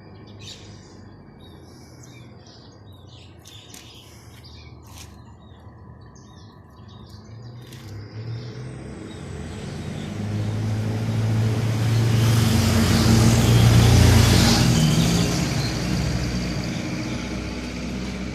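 Small birds chirping faintly, then a motor vehicle passing by: its engine and road noise swell to a peak about three-quarters of the way through and fade away.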